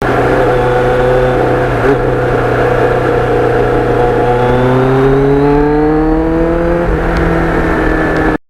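Motorcycle engine running under way, its pitch climbing steadily from about four seconds in and falling back suddenly near seven seconds, as in an upshift.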